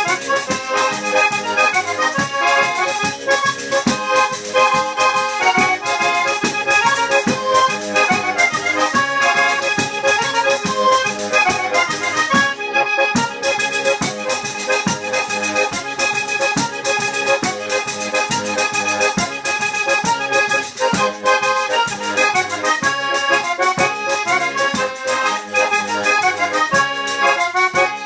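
Two-bass diatonic button accordion (organetto 'ddu botte') playing a traditional folk tune, accompanied by a tamburello frame drum whose strikes and jingles keep a steady rhythm.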